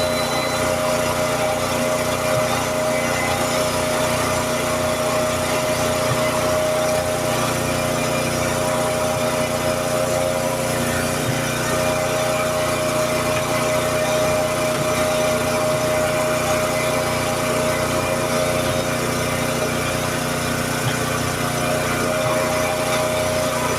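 Portable generator's small gasoline engine running steadily at constant speed, an even mechanical hum with a regular low throb.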